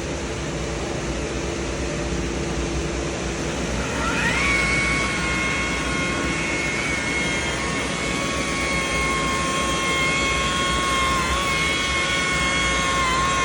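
High-speed electric buffer running with a low hum, then about four seconds in its pitch climbs to a steady high whine as it spins up. It buffs glaze or wax into a restored headlight lens, and the whine dips slightly a couple of times near the end.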